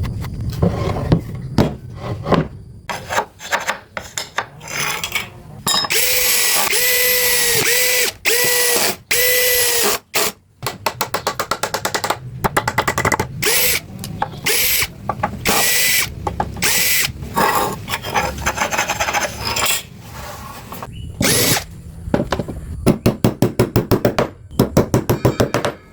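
Power tools working wood in a series of short bursts, a drill-like motor whining steadily for a few seconds at a time, with knocks and a fast run of ratchet-like clicks near the end.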